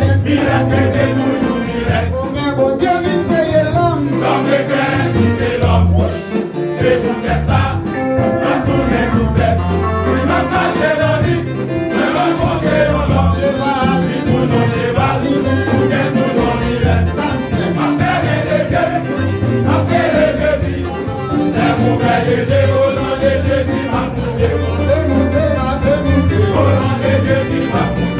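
Men's vocal group singing a gospel song in harmony with live band accompaniment, over deep, long-held bass notes.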